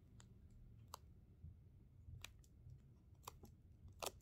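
Faint light taps of fingertips on a tablet's touchscreen, about five scattered clicks over four seconds, the loudest near the end, against near silence.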